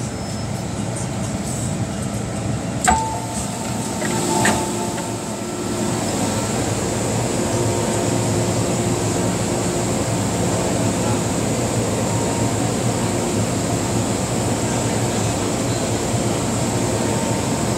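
MTR Tsuen Wan Line metro train heard from inside the carriage: a steady rumble with a thin high whine. There is a sharp click about three seconds in and a brief clatter a second and a half later, and the running noise grows a little louder from about six seconds in.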